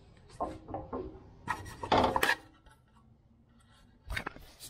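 Metal clanks and scraping from a sheet-metal brake as a small sheet-metal battery tray is worked in it and pulled out: a few light knocks, a louder clatter about two seconds in, and a sharp knock near the end.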